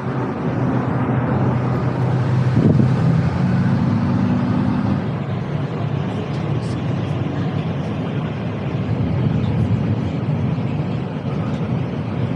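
Steady road and engine noise inside a moving car's cabin: a low hum under an even hiss.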